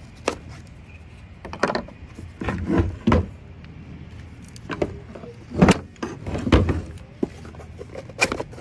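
Cardboard chainsaw box being slit open with a pocket knife and slid off the saw and its bar, with irregular scraping and handling knocks against a plastic truck bed liner, the loudest knocks about six seconds in.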